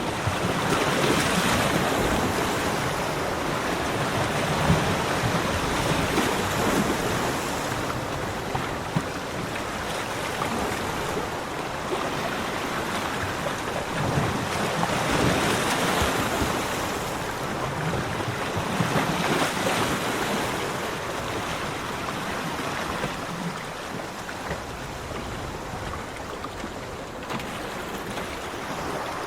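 Ocean waves breaking and washing up a beach, a steady rush that swells with each surge, loudest near the start and again about halfway through.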